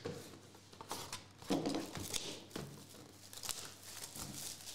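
A cardboard trading card hobby box being torn open by hand: irregular crinkling and ripping of its packaging, with a fuller rip about a second and a half in.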